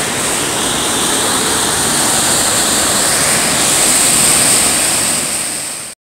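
Small waterfall pouring into a rocky river pool: a steady loud rush of falling water, swelling slightly midway, then fading and cutting off abruptly near the end.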